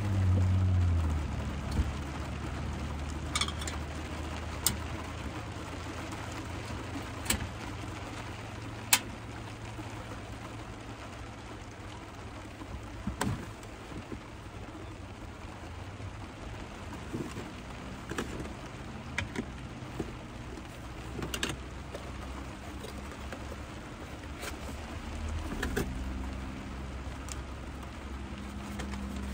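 Clicks, taps and light clatter of cooking gear being handled at a small portable gas stove, over a steady low hum.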